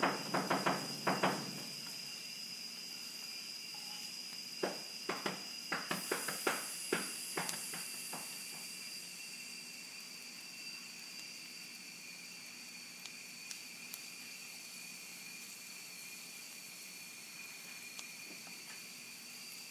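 Scattered light taps and clicks, a cluster of about a dozen between roughly five and eight seconds in, then only a few faint ticks, over a faint steady high-pitched whine.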